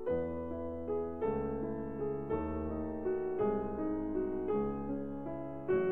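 Slow piano music, a new chord struck about once a second and left ringing.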